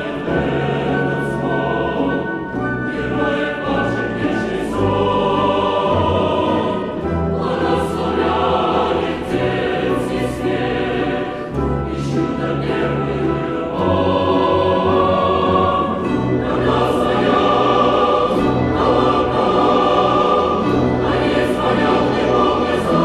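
Mixed choir singing with an orchestra of Russian folk instruments, sustained chords with sharp accents, swelling louder about halfway through.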